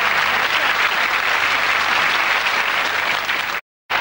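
Studio audience applauding steadily as a guest walks on. The sound cuts out completely for a moment near the end.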